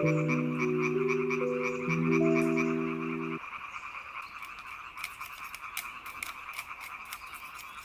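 A dense chorus of frogs croaking steadily. Held music notes sound over it for the first three and a half seconds, and a few scattered clicks come near the end.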